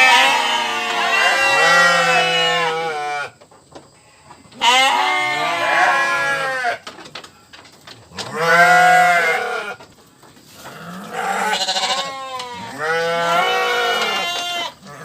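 Sheep bleating: about five long, quavering bleats, each two to three seconds, with short pauses between them.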